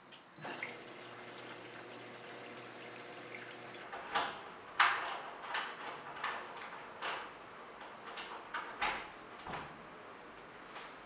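Electrolux top-loading washing machine switched on: a few short panel beeps, then a steady hum as it starts its cycle. After that comes a run of sharp clicks and knocks, the loudest about five seconds in, as a door's handle and latch are worked and the door is opened.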